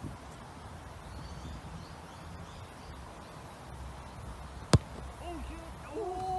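A football kicked hard once: a single sharp thud about three-quarters of the way in. A few short pitched calls follow near the end.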